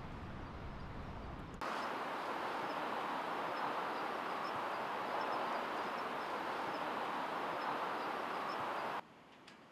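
Steady forest ambience: an even rushing noise with faint high chirps dotted through it, cutting in about a second and a half in and cutting off abruptly near the end, leaving quiet room tone with a faint click or two.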